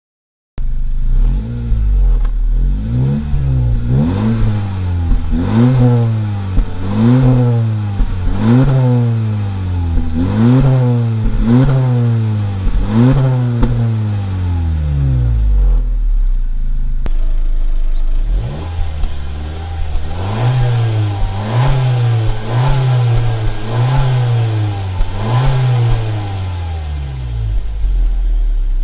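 Honda Civic exhaust as the engine is blipped repeatedly, each rev rising and falling back about every second and a half: about eight blips, then, after a cut, a second Civic (sedan and FK7 hatchback compared) blipped about six times in the same way.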